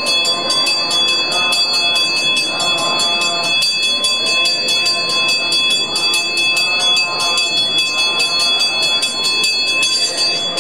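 Temple hand bell rung rapidly and without a break, its high ringing renewed by fast, even strokes. Voices chanting sound beneath it.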